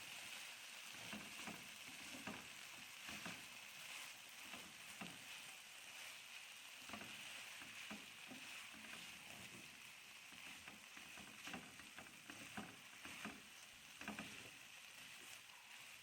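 Chicken shawarma pieces frying in a pan: a faint steady sizzle, with irregular knocks and clicks of a utensil stirring them.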